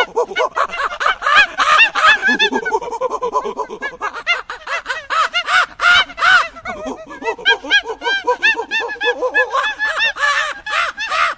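A flock of birds calling: many short calls overlapping in a dense, continuous chorus.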